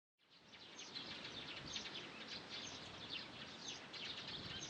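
Faint outdoor ambience with small birds chirping many times in quick succession over a low, steady background rumble.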